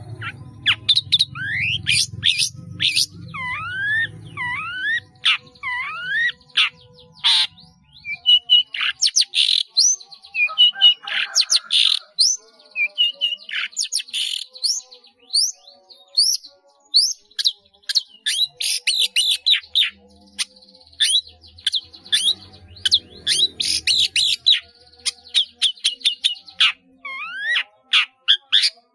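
Long-tailed shrike (cendet) singing continuously, a rapid medley of sharp chirps and curving whistles that slide downward, packed with mimicked calls of other birds.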